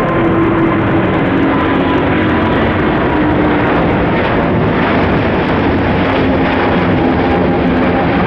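Airbus A350-1000's Rolls-Royce Trent XWB-97 jet engines running loud and steady: a dense roar with a whine that slowly falls in pitch.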